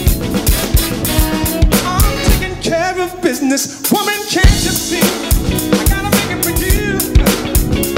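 Funk band music with a Roland TD-9 electronic drum kit played along to it, keeping a steady kick-and-snare groove. About three seconds in, the drums and low end drop out for about a second while a melodic line bends in pitch, then the groove comes back in.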